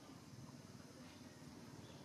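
Near silence: faint, steady low background noise.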